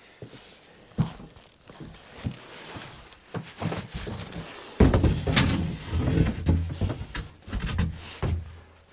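Portable cabin's wooden roof panels being handled and set into place: scattered knocks, then a loud thump about five seconds in followed by a few seconds of low rumbling and knocking as a panel is worked into position.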